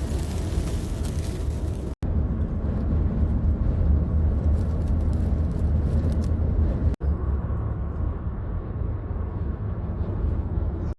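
Wind buffeting the microphone outdoors in a storm, a heavy steady low rumble with a hiss above it. The sound drops out abruptly twice, about two and seven seconds in, where the recording is cut.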